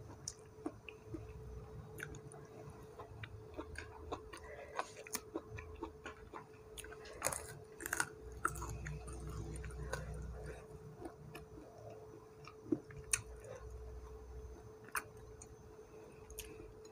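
A person chewing food eaten by hand, with the mouth close to the microphone and many small clicks scattered throughout. A faint steady hum runs underneath.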